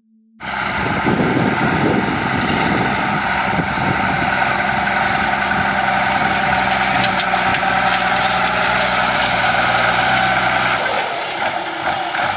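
New Holland 7840 tractor's diesel engine running steadily under load while pulling a disc harrow through dry soil; the sound comes in suddenly about half a second in.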